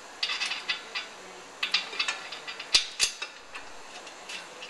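Irregular metallic clicks and clinks of brake parts being handled and fitted at the rotor, with two sharper knocks about three seconds in.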